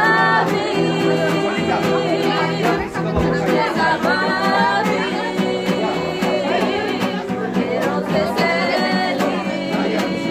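A woman singing a slow melody with long held, wavering notes over instrumental backing with a steady beat.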